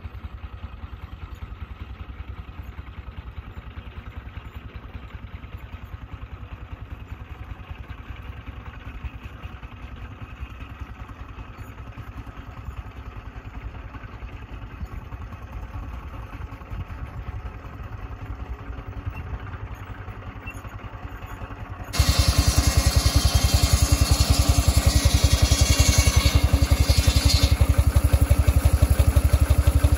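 Half-scale Case 65 HP steam traction engine running, its exhaust chuffing in a rapid, steady beat, at first heard from a distance. About two-thirds of the way through it becomes suddenly much louder and closer, the engine turning its flywheel with a flat belt on.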